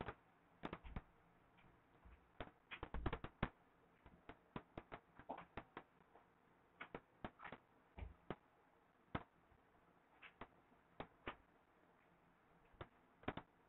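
Faint, irregular clicks and taps of a stylus on a writing tablet as small circles are drawn one after another, some coming in quick clusters.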